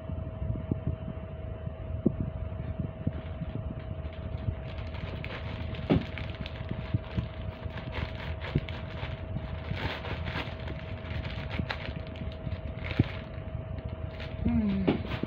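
Plastic bags and clothing being handled: crinkling, rustling and scattered small knocks, busier from about four seconds in, over a steady low background hum with a faint constant tone.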